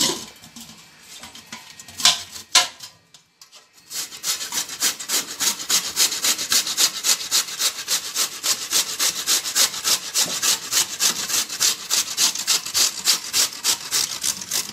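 Ash gourd being grated on a stainless-steel box grater into a steel plate. A few knocks and a short pause come first; then, from about four seconds in, quick, regular scraping strokes.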